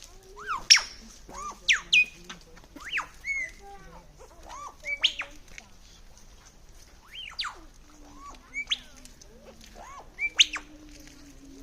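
Superb lyrebird singing a mimicry sequence: loud, sharp, whistled notes that arch up and down in pitch, given in irregular clusters with a pause of a couple of seconds midway.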